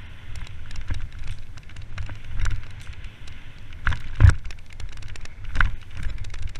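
Mountain bike descending a dirt trail at speed: a steady low rumble of tyres and vibration on the bike-mounted microphone, with constant rattling clicks from the bike. Heavy thuds about four seconds in and again more than a second later as the bike slams over bumps.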